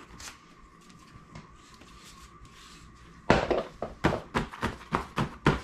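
Hands handling an ultralight camping chair: faint rustling at first, then from about three seconds in a quick run of about eight sharp slaps and rustles as the nylon seat fabric is pressed and smoothed on its aluminium frame.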